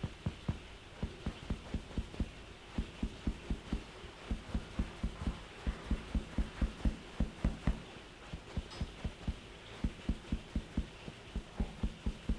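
Percussive massage on a person's body: rapid, evenly paced dull thumps, about four a second, with a short break around eight seconds in.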